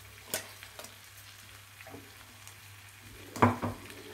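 Spiced pickle mixture sizzling faintly in a hot steel kadhai, with a few light clicks and one loud metal clack of a steel ladle against the pan about three and a half seconds in.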